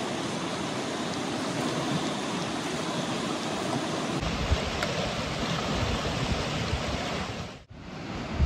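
Rushing river water, a steady noise. About four seconds in it shifts to a deeper rumble, and near the end it drops out briefly.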